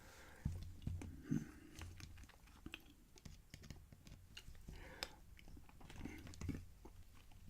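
Small metal clicks and a few dull knocks of a pinned lock being handled and taken apart by hand, scattered and irregular, with the firmest knocks in the first second and a half.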